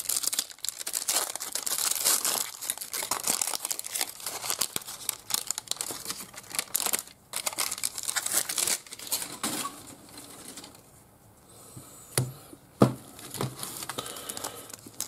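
Foil trading-card pack wrappers crinkling and rustling as packs and cards are handled, with a short lull about ten seconds in and two soft knocks a little after.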